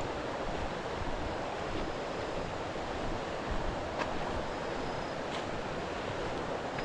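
Steady rush of a waterfall's falling water, an even hiss. A faint high thin whistle sounds briefly twice.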